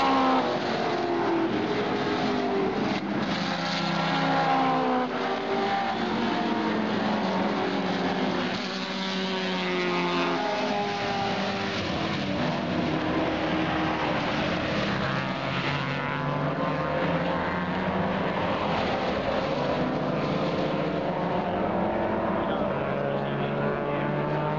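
A field of Group A and Group C touring cars racing past in a pack, several engines at once, their pitch rising and falling as one car after another accelerates and changes gear.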